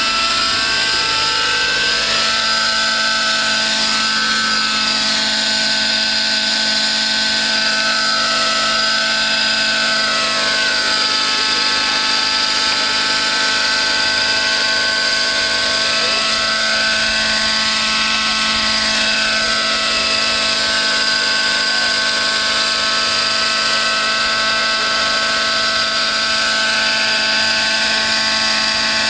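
Radio-controlled model helicopter with a smoking internal-combustion engine, running at flying speed as it hovers and manoeuvres: a steady high-pitched whine of engine and rotors, its pitch gently rising and falling.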